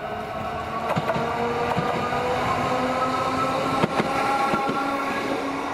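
Toden 7000-series tram passing close by, its nose-suspended traction motors giving a whine that rises in pitch as it gathers speed. Several sharp clacks come from the wheels on the track, the loudest about four seconds in.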